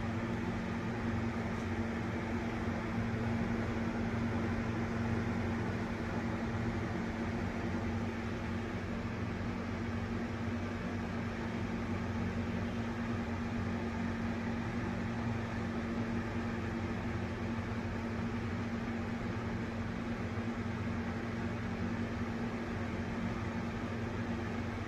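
Wall-mounted exhaust fan running steadily: a constant motor hum under the even rush of moving air.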